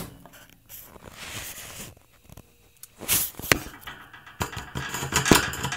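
Rustling and scattered sharp clicks and light knocks, busiest in the second half, from kittens moving about on newspaper lining a wire crate.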